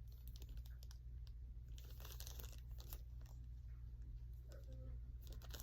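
Paper or plastic packaging rustling and crinkling as it is handled, with scattered soft clicks and two denser bursts of rustle, about two seconds in and near the end, over a steady low hum.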